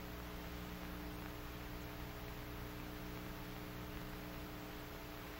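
Steady faint hiss and low electrical hum of an old film soundtrack during a pause in the narration, with no other sound.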